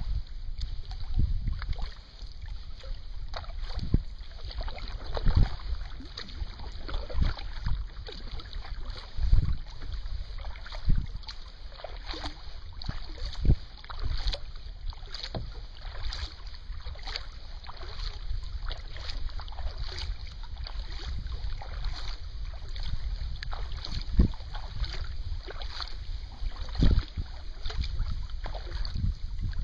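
Kayak being paddled: water splashing and dripping from the paddle, with irregular low thumps on the hull and a low wind rumble on the microphone.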